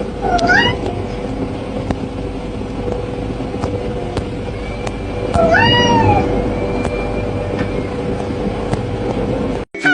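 A cat meowing twice: a short meow about half a second in, then a longer meow that rises and falls in pitch around the middle. Underneath runs a steady low rumble with a constant hum.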